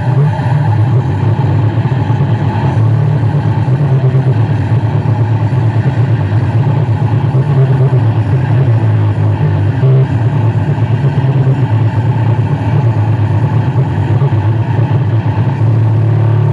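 Miniature sound-system rig playing at full volume, a loud, steady low rumble heavy in bass with no clear beat.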